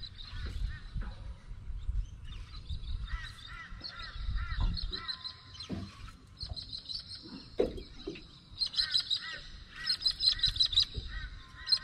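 Birds calling in fast runs of repeated chirps, busier in the second half, over a low rumble.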